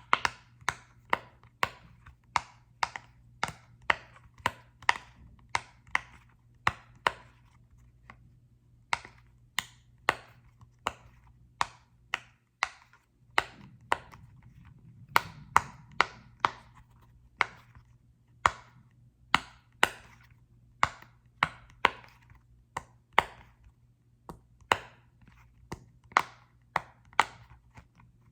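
Tapping on a small soccer-ball-shaped object, a long run of sharp taps at about one to two a second, each with a brief ring, with a few short pauses.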